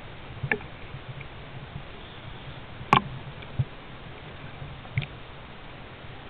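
Water lapping at the surface over a steady low rumble, with a few sharp clicks, the loudest about three seconds in.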